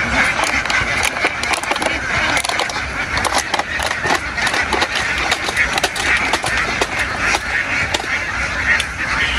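A large flock of domestic ducks quacking all together in a dense, continuous din, with many sharp clicks and taps scattered through it.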